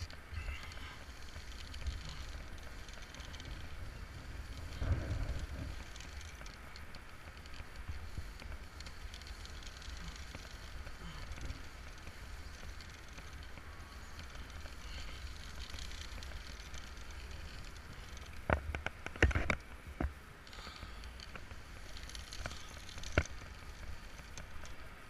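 Wind rumbling on the microphone during a rope descent, with rustling from the rope and harness. There is a short cluster of sharp clicks about three-quarters of the way through and one more near the end.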